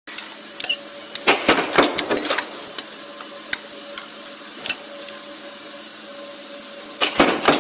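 Deep-drawing power press running with a steady hum, with metal clanks and clatter as round sheet-metal blanks are fed in and drawn into cups. There is a burst of clanking about a second in and again near the end, with single sharp clicks between.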